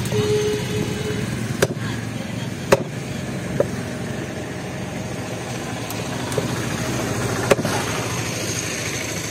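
A steady engine hum, like a vehicle idling, with about five sharp chops of a heavy knife cutting fish down onto a wooden chopping block.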